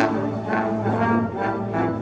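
Music: held brass-like notes changing pitch every half second or so over a steady low note.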